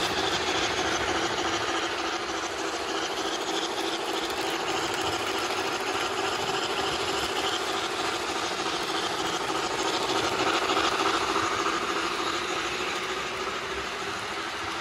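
HO-scale model steam locomotives (MTH and Bachmann GS-4 #4449) running on the layout's track: a steady mechanical running noise of motors and wheels on rail.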